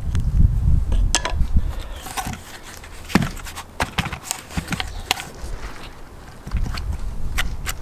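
Scattered knocks and clicks as a hand auger bit and a bark-covered log are handled and turned. A low rumble fades after about two seconds.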